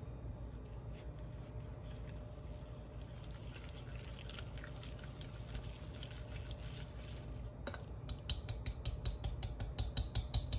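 Wire whisk beating thick brown butter frosting in a stainless steel saucepan: faint stirring at first, then from about eight seconds a fast, even clatter of the whisk striking the pan, about four or five strokes a second.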